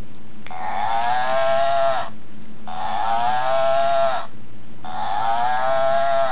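A plush cow toy's sound box playing a recorded moo three times, each about a second and a half long, the pitch sagging slightly toward the end of each.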